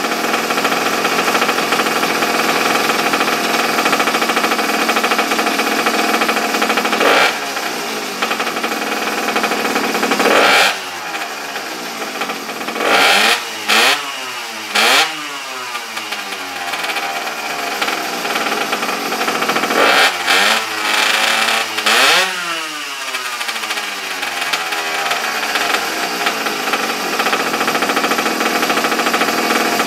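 Small minibike engine running steadily, revved in short blips of the throttle. One comes about seven seconds in, a cluster follows a few seconds later, and another pair comes around twenty seconds. Each rises in pitch and falls back to idle.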